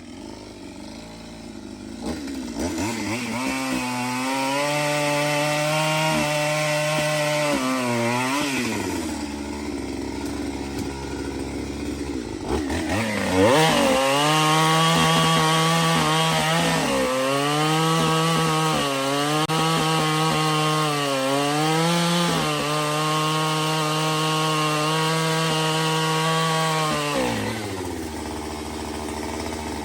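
Two-stroke chainsaw revved up to full throttle and cutting wood, its pitch dipping now and then as the chain loads up in the cut. It drops back to idle for a few seconds near the middle, revs up and cuts again, then settles to idle near the end.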